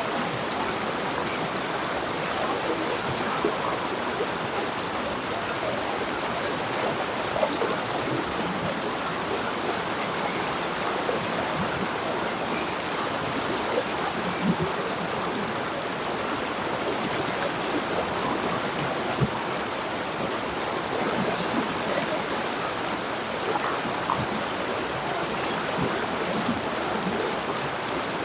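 River water flowing and burbling steadily over rocks, with small splashes.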